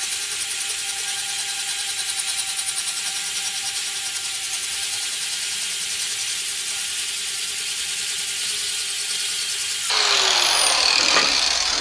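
Electric angle grinder with an 80-grit sanding disc running at steady speed with a high whine while it is passed lightly over an aluminum boat seat base to sand off corrosion. About ten seconds in it is switched off and winds down.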